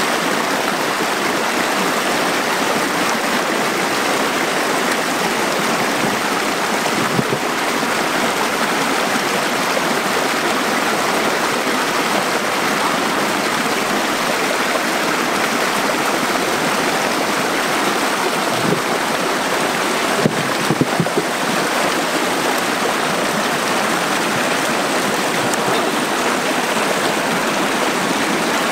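Fast, shallow rocky stream rushing and splashing over boulders, a steady loud water noise. A few short, sharp sounds stand out briefly, once about a quarter of the way in and several more about two-thirds of the way through.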